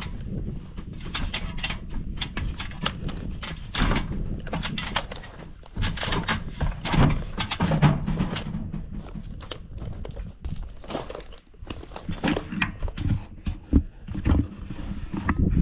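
Irregular knocks and thuds of carpentry work on wooden roof framing, over a low rumble.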